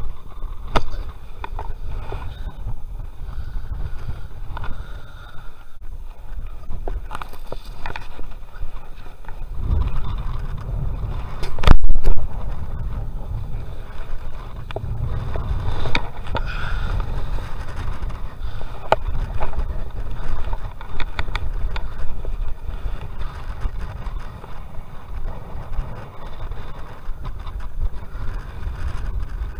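Rumbling, clattering handling noise from a chest-mounted action camera jostled as its wearer moves, with scattered knocks and one loud knock about twelve seconds in.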